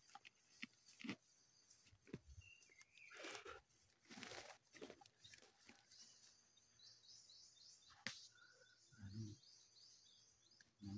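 Near silence of a forest, with scattered soft rustles and clicks, and a rapid run of high chirps from about six seconds in.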